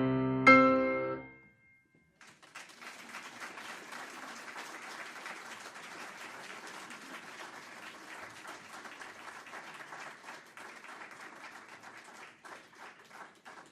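A piano's last chords ring out and fade. About two seconds in, an audience starts applauding steadily, and near the end the applause thins into scattered claps.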